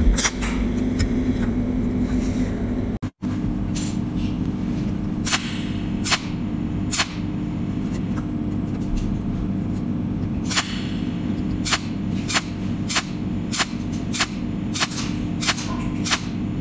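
Cold welding machine discharging through its electrode onto metal: sharp snapping cracks, one every half second to a second at irregular spacing, over a steady low hum.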